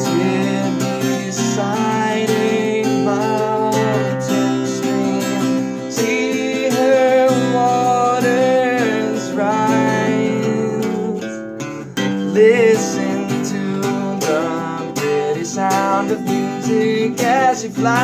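Acoustic guitar playing a steady accompaniment while a man sings a slow melody over it, with a short drop in the playing about halfway through.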